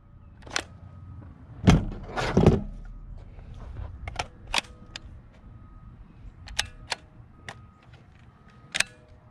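Metallic clicks and clacks of a Black Aces FD12 bullpup shotgun being handled during a reload, its magazine changed and its action worked, with two heavier knocks about two seconds in.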